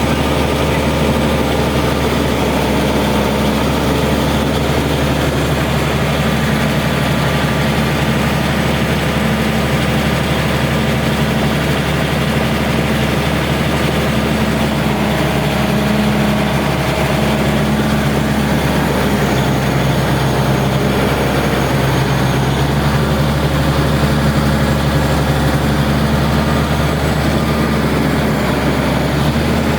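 Zoomlion bulldozer's diesel engine running steadily at idle.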